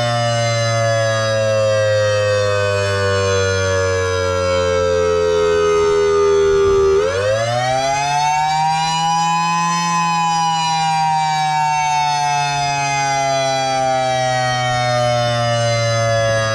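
Ion Pathfinder warning siren sounding the attack signal as a slow wail. Its pitch sinks steadily, swoops up sharply about seven seconds in, then slowly falls again.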